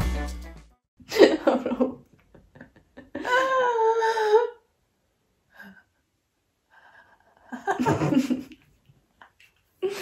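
Two women laughing in short bursts, with a held, wavering vocal sound a few seconds in and quiet gaps between; background music fades out right at the start.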